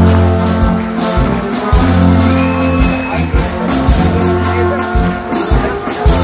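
Brass band playing a Bohemian polka live, with tuba bass notes under trumpets and trombones and regular drum and cymbal strokes marking the beat.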